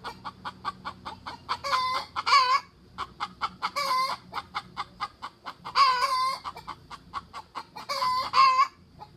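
Repeated animal calls: a fast run of short clicking calls, broken by a longer wavering call about every two seconds, four in all.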